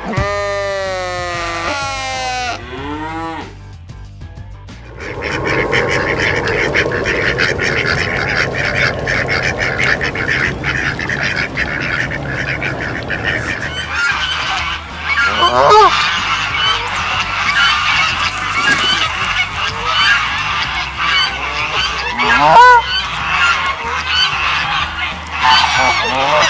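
Farm geese honking as a flock, many calls overlapping, with now and then a single louder honk standing out.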